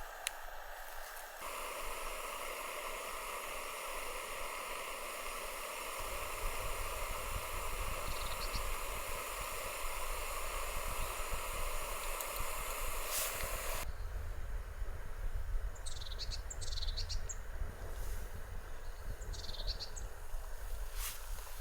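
Outdoor nature ambience in hard wind, with a low rumble of wind on the microphone setting in about a quarter of the way through. A few short high chirps come in the last third.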